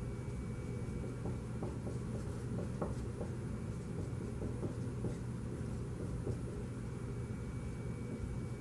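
Dry-erase marker strokes on a whiteboard: short, irregular scratchy strokes as a chemical formula is written, over a steady low room hum.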